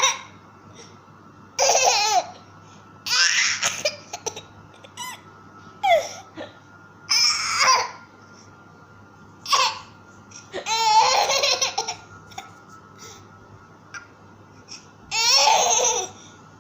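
Baby laughing hard in repeated bursts, some short and some over a second long, with quiet pauses between them.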